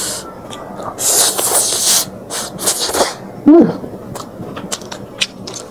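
Close-miked eating: two long, noisy slurps of noodles and fish-sauce dip, then sharp clicks of chewing crispy fried fish, with a short hum in the middle.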